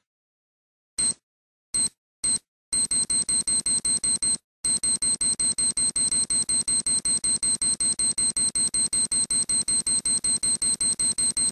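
Electronic alarm clock beeping: three spaced single beeps, then a fast run of high-pitched beeps, about four a second, broken by a short pause about four and a half seconds in.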